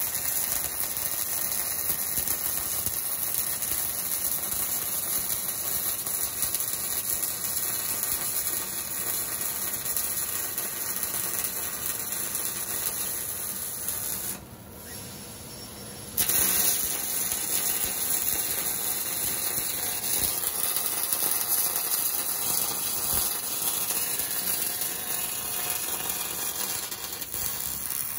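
Robotic MIG welding arc burning steadily. It stops for about two seconds near the middle, then strikes again.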